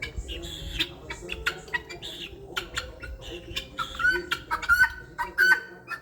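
Chickens clucking, a quick run of short calls that grows louder and more frequent in the second half.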